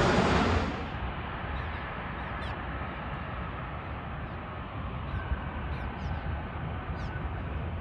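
Noise of an Embraer E175 regional jet passing low overhead cuts off abruptly in the first second, leaving a low, steady distant jet rumble. Several short, high bird chirps come through over it.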